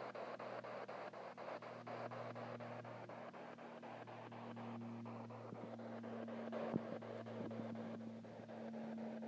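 Spirit box radio scanning through stations: static chopped by rapid, evenly spaced ticks, several a second, over a steady hum. A single knock about two-thirds of the way through.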